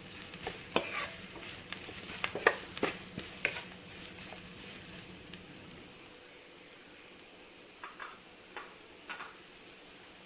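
A spoon stirring a grated-coconut and onion mixture frying in coconut oil in a pan, with a faint sizzle under it. The spoon clicks and scrapes against the pan often in the first few seconds, then only a few times near the end.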